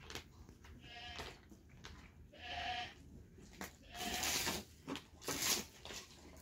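Farm animals bleating several times in wavering calls, with two swishing, rustling bursts in the second half as something is flung out of a plastic bag.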